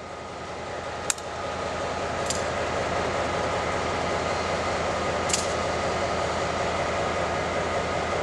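Steady mechanical rumble of a departing passenger train's diesel locomotive, swelling over the first couple of seconds and then holding level, with a few faint high clicks.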